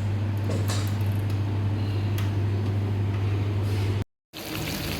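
A steady low mechanical hum with a few light knocks, which cuts off abruptly about four seconds in and returns as a quieter hum.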